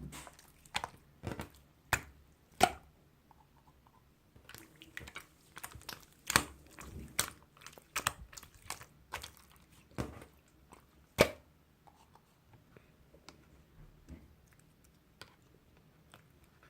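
Chewing on something crunchy close to the microphone: irregular crisp crunches and clicks, thickest for the first twelve seconds or so and only a few scattered ones near the end.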